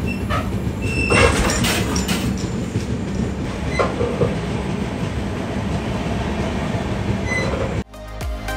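Steady rumble and clatter of a moving LHB passenger coach, heard inside the vestibule between coaches, with a few short squeaks and clanks. Near the end it cuts off abruptly and background music begins.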